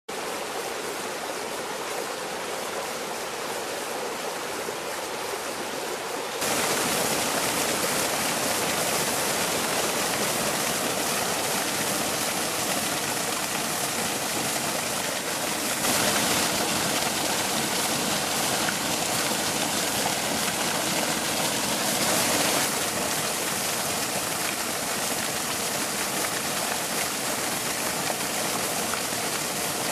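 Small waterfall on a stream splashing over rocks into a pool, a steady rush of falling and churning water that gets louder about six seconds in.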